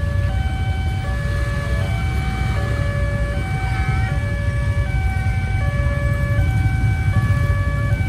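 Railway level-crossing warning siren sounding a steady two-tone alarm, switching between its two notes about every three-quarters of a second while the barrier is down. The uploader says a short circuit has made this siren hoarse. Beneath it runs a low steady rumble of waiting road traffic.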